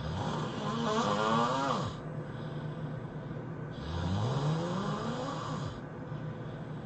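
A person snoring heavily: two long snores about two seconds apart, each rising in pitch as it goes, with a rasping hiss over the tone.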